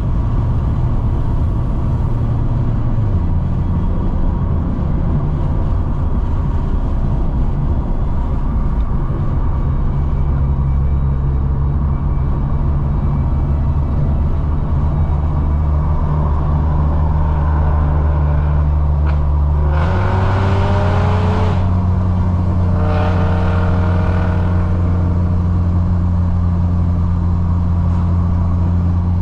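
Car engine and road noise while driving, a steady drone that changes pitch a few times. About twenty seconds in, the engine revs up twice in quick rising sweeps as the car accelerates.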